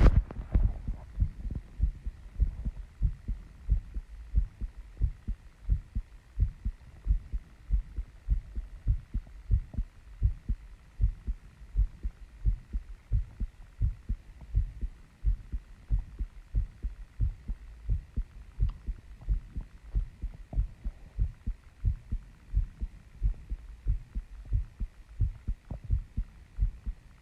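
A woman's heartbeat, close and amplified, thumping in a steady, even rhythm of low beats after running and squats.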